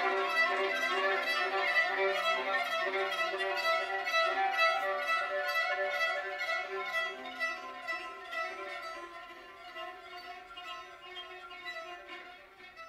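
A violin and a viola playing together: quick repeated short bowed notes over held tones, fading steadily quieter toward the end.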